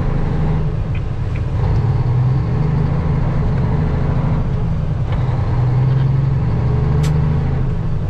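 Semi truck's diesel engine droning steadily inside the cab while cruising on a highway, with road noise and a single short click near the end.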